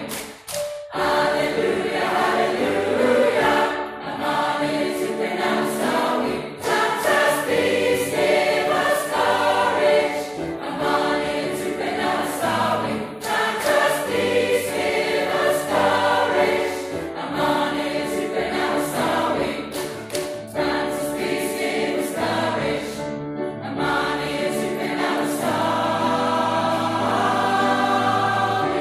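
A mixed community choir of men and women singing together, with a brief break in the sound about half a second in.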